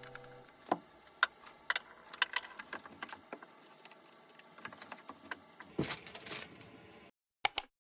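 Scattered light clicks and small knocks of household items being handled, with a short rustling burst about six seconds in and two sharp clicks near the end.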